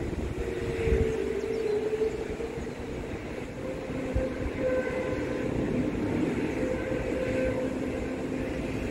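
Aircraft engines running as a steady drone, with a humming tone that shifts slightly in pitch over a low rumble. Two brief low thuds come about a second in and around four seconds in.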